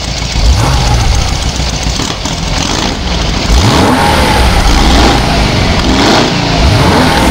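An engine running and being revved up and back down several times.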